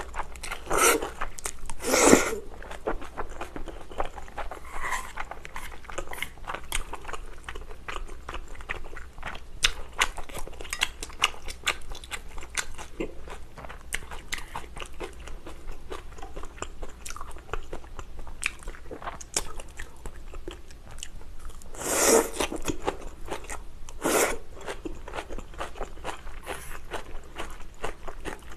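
Close-miked eating of spicy stir-fried glass noodles with bean sprouts: steady wet chewing and crunching with many small mouth clicks. There is a louder slurp about two seconds in and two more near the end.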